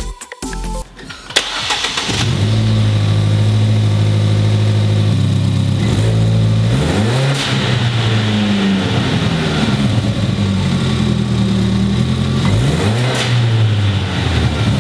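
Ford Fiesta ST's turbocharged 1.6-litre four-cylinder starting about two seconds in after a click, settling into a steady idle, and revved briefly twice, once about halfway and once near the end: the first start after the front-mount intercooler install.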